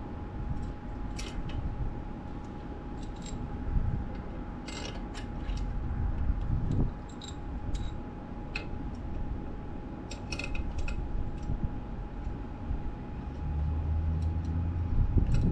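Irregular metallic clinks and clicks of hand tools and metal engine parts being handled on a car engine during reassembly, over a low background rumble that swells near the end.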